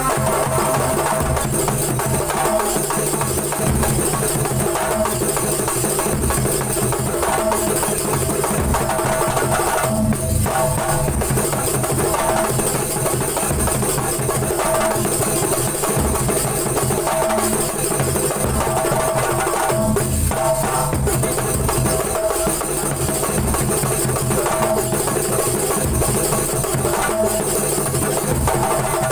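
Banyuwangi Kuntulan percussion ensemble playing: many hand-struck rebana frame drums in a dense, driving rhythm with large jidor bass drums beating underneath.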